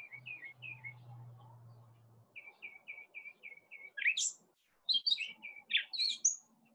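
Songbirds chirping: runs of quick, short chirps, with a few louder rising notes from about four seconds in.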